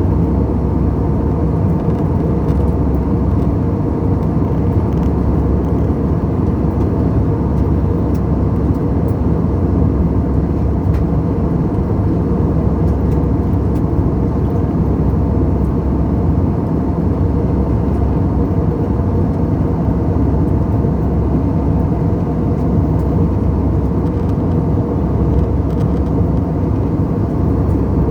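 Airbus A320 airliner noise: a steady, unchanging low drone of engines and airflow.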